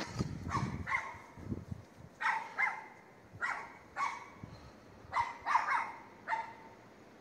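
A dog barking repeatedly: about a dozen short barks in twos and threes, stopping shortly before the end.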